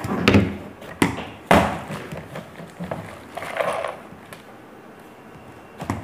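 Hard plastic vacuum-cleaner attachments, the hose handle and floor nozzle, knocking and clicking as they are handled and fitted together. There are a few sharp knocks in the first second and a half, then quieter handling noise.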